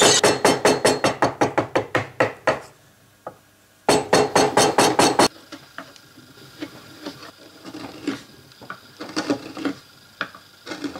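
Wooden mallet tapping a bench chisel into alder in quick, light, even strikes, about five a second, stopping about two and a half seconds in; a second short burst of taps follows about four seconds in. After that, quieter scattered clicks and scraping of the chisel paring the wood by hand.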